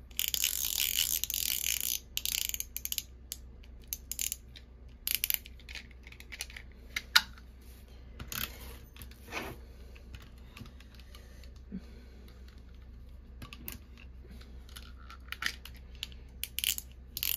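Refillable tape-runner adhesive dispenser, with a rasping drag of the runner and tape over cardstock for about the first two seconds, then scattered plastic clicks and short scrapes as the runner is twisted and pressed along the paper. The refill is jamming and not feeding its adhesive smoothly.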